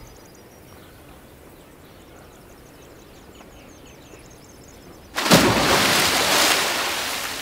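Faint birds chirping over quiet outdoor air. About five seconds in, a sudden loud splash of pool water, which then slowly dies away.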